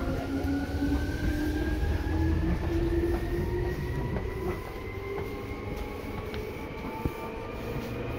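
Seibu 2000 series electric train under way, its traction motor whine rising steadily in pitch as the train gathers speed, over a low rumble of wheels on the rails. A single sharp click about seven seconds in.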